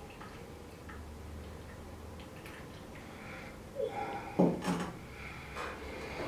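A glass conical flask set down on a wooden tabletop with a sharp knock about four seconds in, followed by a couple of lighter clinks and taps.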